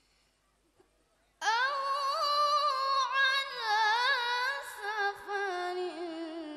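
A boy's high voice reciting the Quran in the melodic murattal/tilawah style into a microphone, starting about a second and a half in after a pause. He holds long, ornamented notes that waver up and down in pitch.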